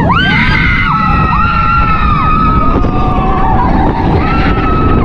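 Several riders screaming at once, held, rising and falling cries, as the Silver Star roller coaster train drops down its first drop, over loud wind rush on the microphone.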